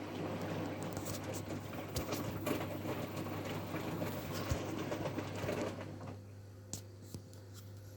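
Hotpoint front-loading washing machine tumbling a load of socks in water during a rinse, a swishing churn over a steady low hum. The churning stops about six seconds in, as the drum pauses between turns.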